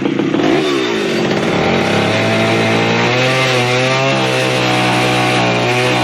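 Two-stroke chainsaw running hard: its pitch drops about a second in, then holds steady with small wavers in engine speed.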